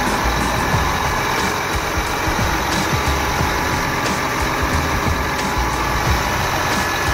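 John Deere 8360RT's 9.0 L PowerTech PSX six-cylinder twin-turbo diesel running steadily after its overhaul.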